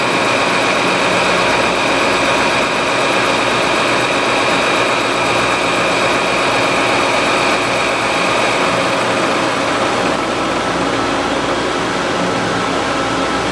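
SNK bridge mill's 5-inch Seco Octomill face mill taking a 0.050 in deep roughing cut across H-13 tool steel plate: a loud, steady cutting noise with a high ringing tone, easing slightly in the upper range about ten seconds in.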